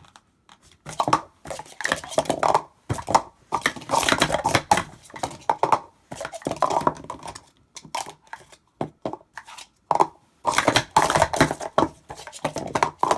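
Plastic sport-stacking cups being rapidly stacked and unstacked: quick runs of clattering clicks as the cups nest and slide, broken by short pauses between sequences. The stacker says these cups make the right sound.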